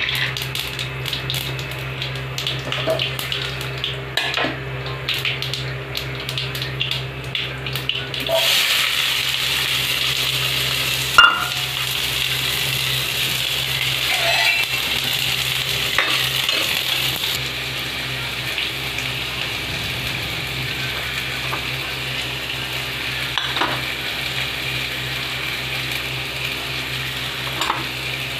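Fenugreek and mustard seeds crackling and popping in hot oil in a kadai. About eight seconds in, chopped onions go into the oil and a steady loud sizzle of frying takes over, with a sharp knock of a spoon on the pan a few seconds later and a few lighter clinks.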